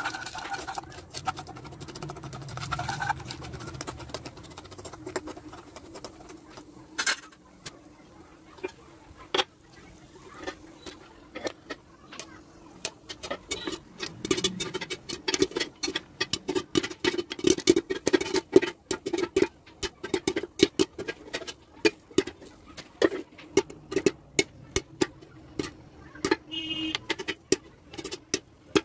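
Popcorn kernels popping in hot oil inside a pan covered with an aluminium lid: a few scattered pops at first, building to rapid, dense popping. At the start a metal spoon scrapes and stirs the kernels in the oil.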